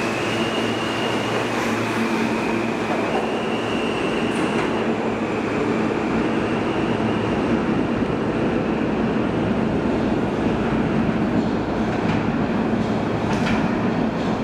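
New York City subway R160 train running through an underground station: a steady, loud rail and wheel rumble, with a high electric whine that changes pitch in steps over the first few seconds as the train pulls out. A few sharp clicks come near the end.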